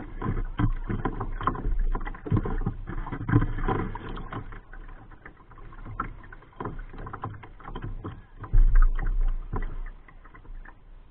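Water lapping and splashing against the hull of a Sun Dolphin kayak, with many small irregular knocks, heard close up from the deck. About eight and a half seconds in there is a louder low rumble.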